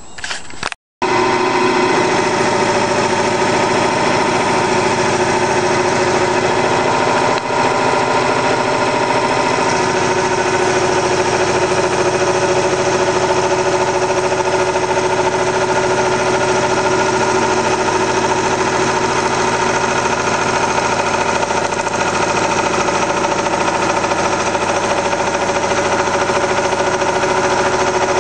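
Converted 10x18 wood lathe running steadily under its motor and belt drive, a continuous mechanical hum with a few steady tones. It starts after a brief break about a second in.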